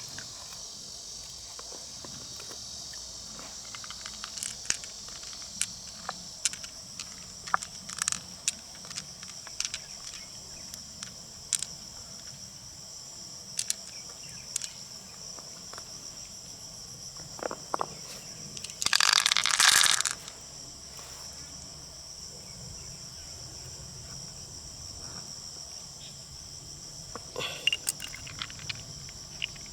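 A steady high chorus of crickets, with scattered sharp clicks and crunches from river mussel shells being handled and pried open. A louder crunching burst lasting about a second comes about two-thirds through.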